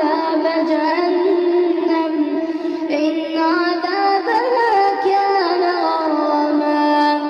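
A high voice chanting Quranic recitation (tajwid) in a melodic style, drawing out long held notes that step and waver in pitch through the whole stretch, with no instruments.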